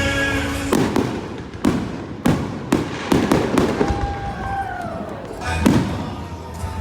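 Aerial fireworks bursting in a rapid series of sharp bangs, each trailing off in a rumbling echo, with music playing faintly behind them.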